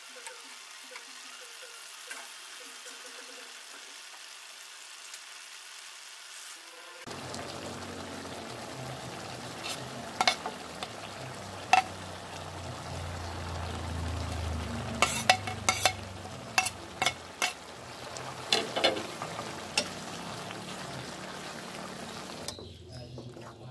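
Curry of chicken and pickled bamboo shoots sizzling and bubbling in a pot, louder from about seven seconds in, while a metal spoon stirs it and knocks against the pot several times.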